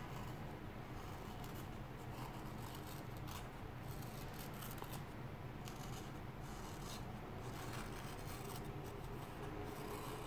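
Bare Olfa 30-degree 9 mm snap-off cutter blade slicing slowly through a sheet of paper: a faint, scratchy rasp of the edge dragging through the paper.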